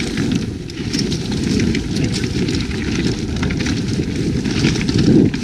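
Full-suspension mountain bike (an Evil Calling) riding fast downhill on a dirt and rock trail: tyres crackling over the ground and the bike rattling with many short ticks, over a steady wind rumble on the helmet or chest camera's microphone.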